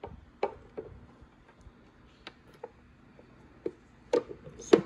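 Scattered light clicks and knocks of a plastic-cased electronic speed controller and its wires being handled and pressed into an RC boat hull. They come at uneven intervals, with the two loudest knocks near the end.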